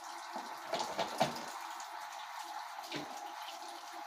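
Kitchen tap running steadily into a sink while a wooden cutting board is washed under it, with a few sharp knocks and clatters about a second in and again near the end.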